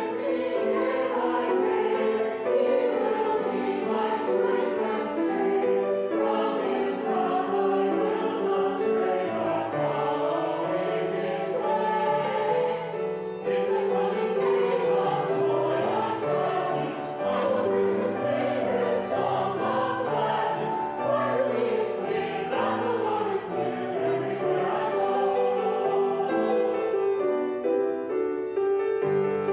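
Mixed church choir singing together with grand piano accompaniment.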